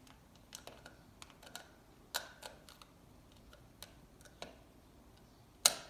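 Light, scattered clicks and ticks of a small screwdriver and loose screws being handled against plastic toy parts, with one sharper, louder click near the end.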